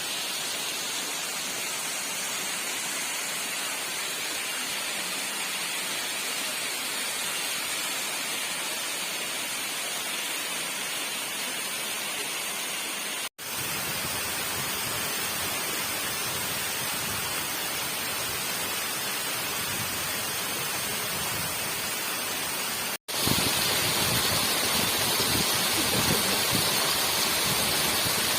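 Steady rush of a waterfall about ten metres high, water pouring and splashing. It drops out for an instant twice and is louder after the second break, near the end.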